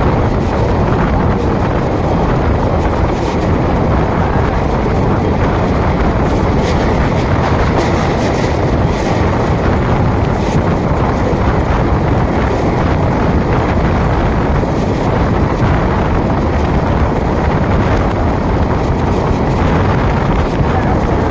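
Steady wind buffeting the microphone over the running noise of a moving passenger train's wheels on the rails, taken from outside a coach door as the train runs at speed.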